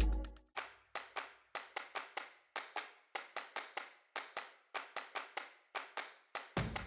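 Sharp percussive claps or clicks, about four a second, alone without the rest of the beat: a sparse percussion break in the electronic background music.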